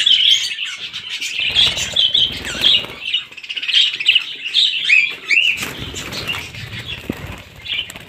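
A flock of caged budgerigars, red-eyed lutinos and albinos, chirping and chattering continuously, with wing flapping as birds flutter about the cage about a second and a half in and again past the middle.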